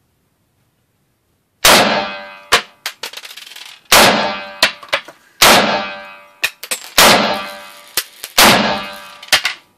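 Five shots from a semi-automatic AR-style carbine, about one and a half seconds apart, each with a long ringing echo off the walls of an indoor range lane. Shorter, sharper cracks fall between the shots.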